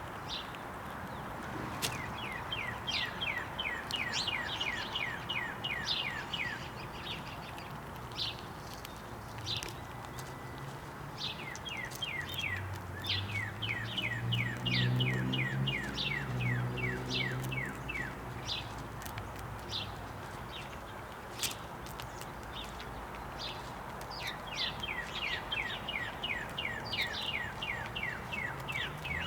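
Songbird singing long series of quick downward-slurred notes, about three a second, in three bouts, with scattered short bird chirps around them. A low, steady, engine-like hum swells and fades in the middle.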